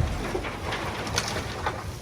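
Diesel engine of heavy earthmoving machinery running in the background at a low level, with a few short, high-pitched chirps or squeaks about a second in.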